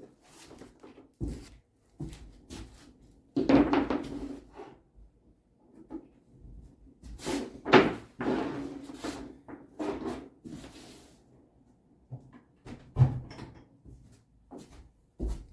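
Irregular clunks, knocks and scrapes of a propane hose and regulator fitting being handled and connected to a propane tank, the loudest about a third and half of the way through.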